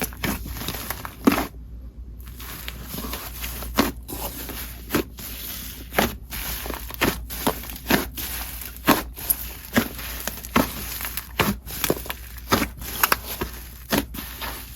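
Soft inflated clay slime being squished and stretched by hand, giving sharp sizzly pops about once a second with fainter crackling between them.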